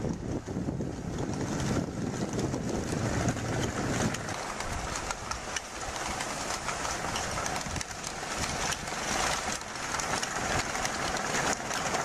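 Tracked snowcat's engine running as it drives through deep snow, with many small rattling clicks from its tracks in the second half.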